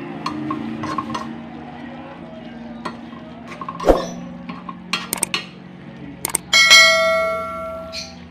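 A spoon stirring and tapping in a pot of simmering coconut-milk fish stew, with scattered light clicks. Later come a few sharp clicks, then a loud bell chime that rings out and fades over a second or so: the click-and-bell sound effect of a subscribe-button animation.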